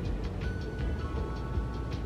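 Background music: held notes over a quick ticking beat.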